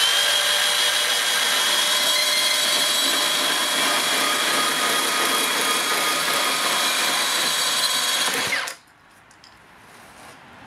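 Makita PB002G 40V cordless band saw with a coarse 10-tooth blade running and cutting through a large plastic pipe: a steady whirr with a high whine that cuts off suddenly about eight and a half seconds in. Faint handling noise follows.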